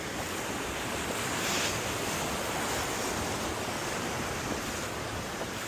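Small ocean waves washing in the surf, a steady rush of water noise that swells briefly about a second and a half in.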